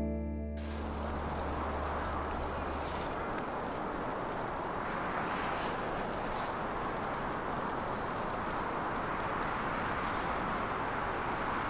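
Steady, even hiss of outdoor ambience, with a low note from the background music dying away about three seconds in.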